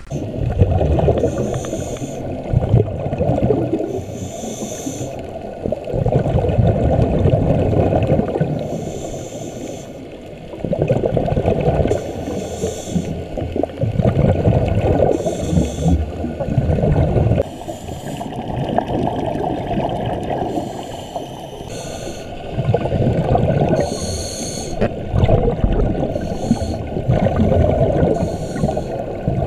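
Scuba regulator breathing heard underwater: rumbling, gurgling bursts of exhaled bubbles every few seconds, with hissing inhalations through the regulator between them.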